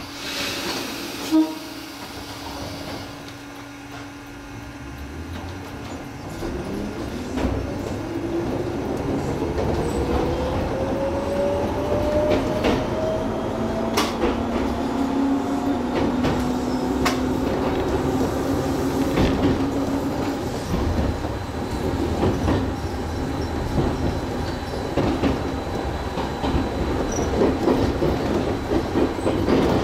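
Gakunan Railway electric train pulling away. About six seconds in, a steady hum gives way to a traction-motor whine that rises in pitch for about eight seconds as the train accelerates. The train then runs on with wheel and rail noise and scattered clicks over the rail joints.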